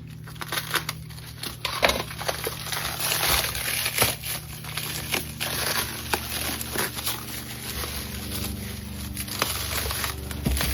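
Crinkling and crushing of packaging being handled, with many irregular clicks and crackles.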